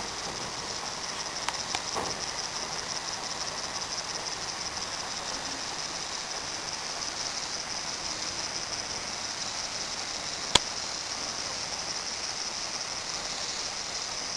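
Steady high-pitched chorus of insects chirring in a fast, even pulse, with a few faint clicks about two seconds in and one sharp click about ten seconds in.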